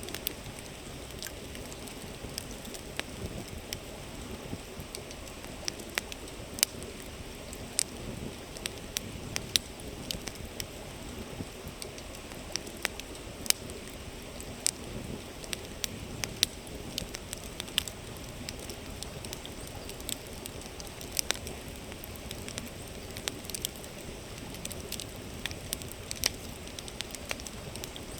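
Wood campfire crackling, with irregular sharp pops and snaps scattered throughout, over the steady sound of a flowing river.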